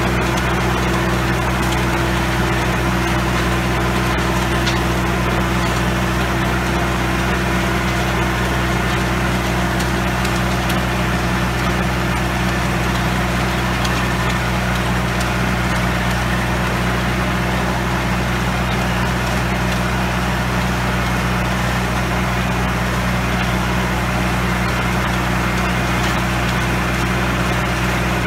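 Antonio Carraro TRX 9900 compact tractor's diesel engine running at a steady working speed while driving a rear-mounted rotary tiller (rotavator) through the soil.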